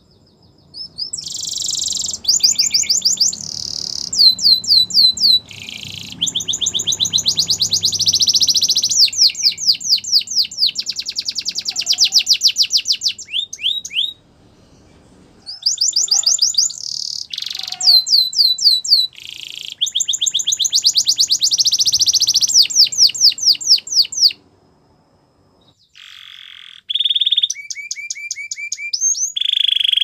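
Yellow canary singing a long, loud song of fast trills and rapid repeated whistled notes, in phrases of a few seconds each, with two short pauses.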